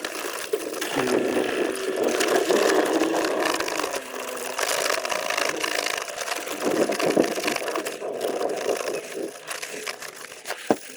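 A brush scrubbing the splined gearbox selector shaft clean, a continuous uneven scratching that eases off near the end.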